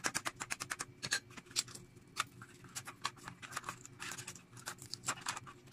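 Shell of a hard-boiled egg crackling as it is cracked and peeled by hand on a plastic lid: a quick, irregular run of small clicks and crackles.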